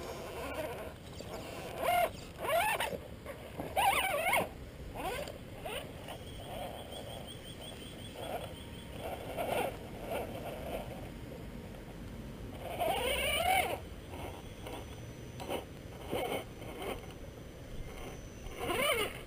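Axial Wraith RC rock crawler's electric motor and gears whining in short throttle bursts as it crawls over rock, the pitch rising and falling with each burst. The loudest bursts come about two seconds in, at about four seconds, and again about two-thirds of the way through.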